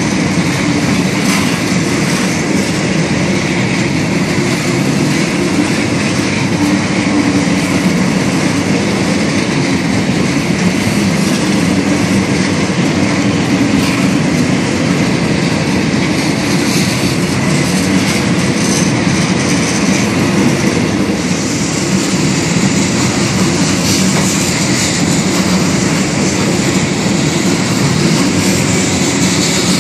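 Freight train of open-top coal hopper cars rolling steadily past at close range, a continuous rumble of steel wheels on rail. A thin, high wheel squeal joins in about two-thirds of the way through.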